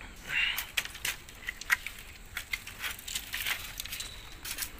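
Scattered light clicks and crackles from footsteps and the handheld phone being moved while walking through dry brush, with a brief rustle about half a second in.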